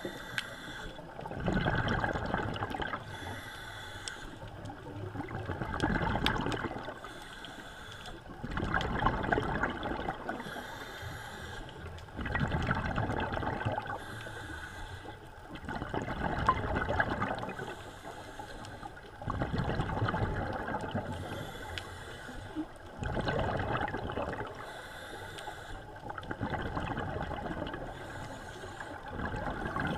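Scuba diver breathing through a regulator underwater: a rush of exhaled bubbles about every three and a half seconds, with quieter inhalations between.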